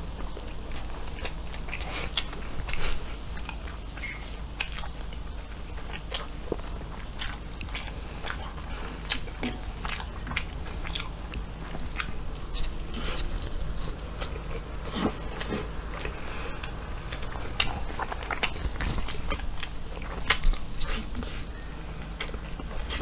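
A person biting and chewing a croissant sandwich with chicken slices: a dense run of small crunchy clicks and crackles from the pastry.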